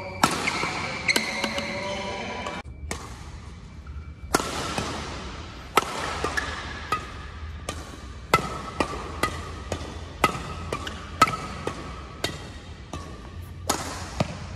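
Yonex Nanoflare 800 badminton racquet striking a shuttlecock again and again, sharp cracks roughly two a second that echo briefly, with background music underneath.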